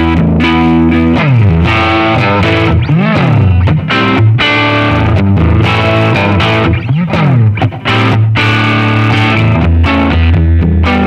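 Les Paul electric guitar fitted with Lundgren Heaven 57 humbucker pickups, playing sustained chords and notes. The pitch swoops down and back up three times.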